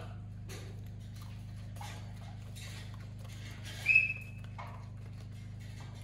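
Faint rustles and small clicks of pets moving about on a towel over a steady low hum, with one short, high-pitched squeak about four seconds in.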